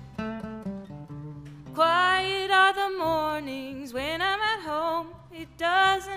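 Acoustic string band with banjo, fiddle, upright bass and acoustic guitar playing an instrumental passage between sung lines. Quick picked notes come first, then about two seconds in a sustained, sliding melody line comes in over the plucked accompaniment and bass.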